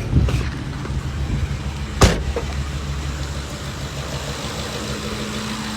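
2008 Ford Expedition's 5.4-litre V8 idling steadily with its serpentine belt left off, so the freshly fitted AC compressor isn't being driven. A single sharp click about two seconds in, and a steady low hum joins about a second later.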